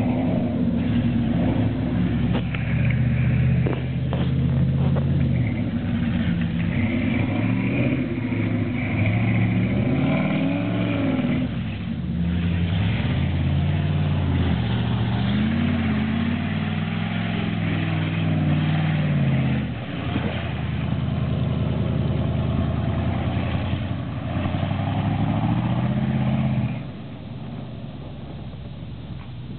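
V8 pickup truck engine revving hard again and again as the truck ploughs through mud, its pitch climbing and falling every few seconds; it gets quieter near the end.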